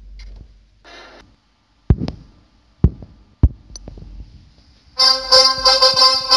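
A few separate sharp knocks, then keyboard background music comes in loudly about five seconds in.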